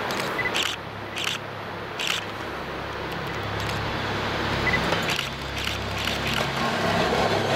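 Diesel railcar engine of an approaching train, a low steady drone slowly growing louder, with several sharp clicks over it.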